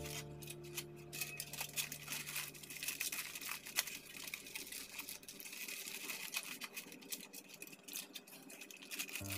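Aluminium foil crinkling and crackling as hands fold it around a banana-leaf parcel, in a quick irregular run of small crackles.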